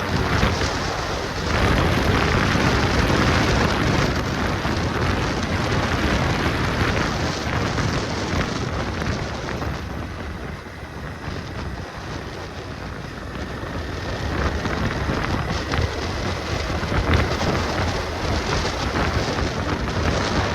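Wind rushing over the microphone with road and traffic noise while riding a motorcycle, a steady rush that dips a little in the middle.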